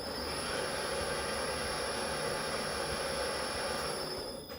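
Metal lathe running steadily, a whirring hiss with a thin high whine over it, dying away near the end.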